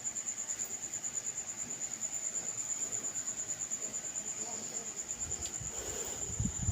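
Cricket chirping: a steady, evenly pulsed high trill throughout, with a few low thuds near the end.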